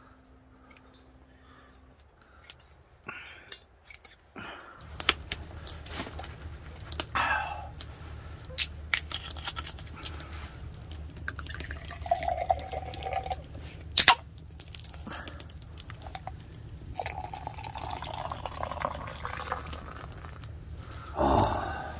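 Beer poured from a can into a glass mug, splashing and fizzing, after a run of sharp clicks and knocks from bottles and glassware, the loudest a single snap about 14 seconds in. A steady low hum runs underneath from about 5 seconds in.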